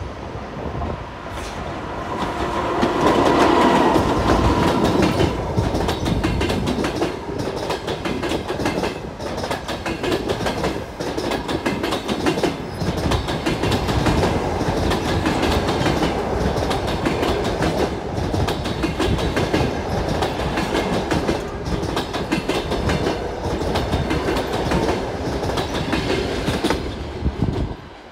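EP2K diesel passenger locomotive passing close by, loudest a few seconds in, followed by a long train of passenger coaches rolling past with a steady clickety-clack of wheels over rail joints. The sound drops off suddenly near the end.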